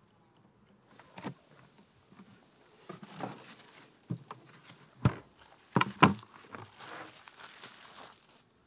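Kitchen handling sounds: several sharp knocks and clatters, the loudest two close together about six seconds in, between stretches of crinkling and rustling.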